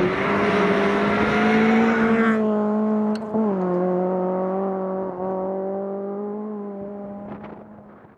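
Nissan Almera GTI rally car's four-cylinder engine held at high revs with a steady note that dips slightly about three seconds in, then fades away near the end.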